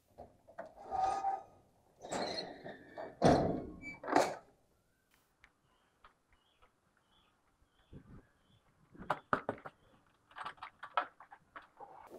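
Collapsible steel scissor gate being handled: metal rattles and knocks, with one heavy thunk about three seconds in. Scattered small clicks and knocks follow near the end.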